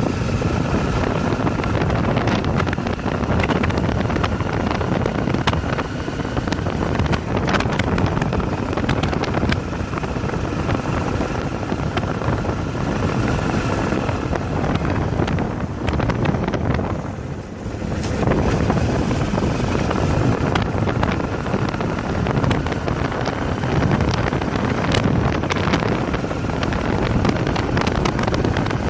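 Motorcycle riding at speed, its engine running under heavy wind noise on the microphone; the sound dips briefly a little past halfway, then picks up again.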